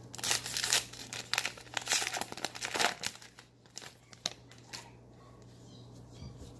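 Wrapper of a baseball card pack crinkling and rustling as it is handled, dense for about the first three seconds, then a few light clicks.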